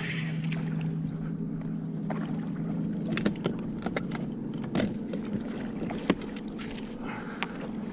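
A hooked bowfin being brought to the net beside a kayak: scattered clicks and knocks of rod and net handling, and the fish splashing at the surface, with the sharpest knock about six seconds in. A steady low hum runs underneath.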